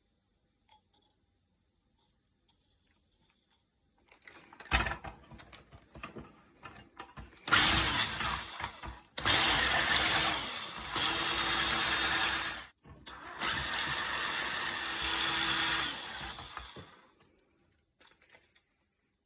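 Electric drill running in three bursts of a few seconds each while grating a daikon radish: a steady motor hum under a loud rasping hiss. Scattered knocks and handling noise come before the first burst.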